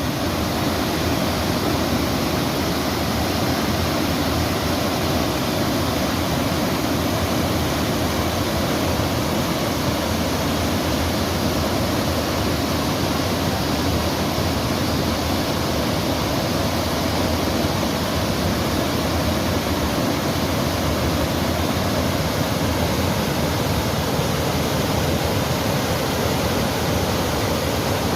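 Running water rushing steadily, a dense even roar like a waterfall or fast stream.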